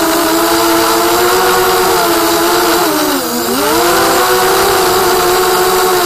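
FPV racing quadcopter's brushless motors and propellers whining at high throttle. About three seconds in the pitch drops briefly as the throttle is eased off, then climbs back.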